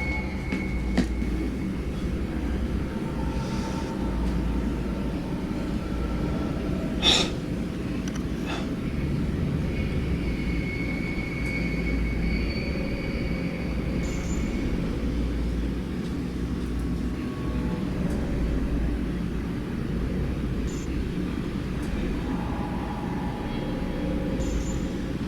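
A steady low mechanical rumble with faint, thin high-pitched squeals that come and go, and a sharp click about seven seconds in.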